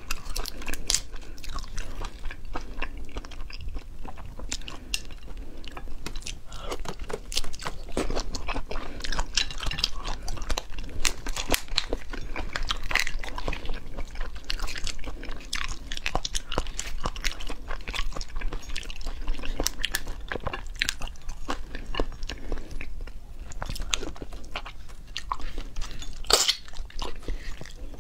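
Close-up crackling and snapping of cooked Argentine red shrimp shells being pulled apart and peeled by hand, mixed with wet chewing and crunching, in an irregular run of small clicks with one sharper crack near the end.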